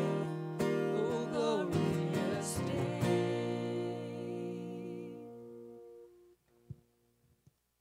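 The close of a hymn on strummed acoustic guitar with a singer's voice: the last sung note ends about three seconds in, and the final guitar chord rings on and fades out over the next few seconds. A couple of faint knocks follow near the end.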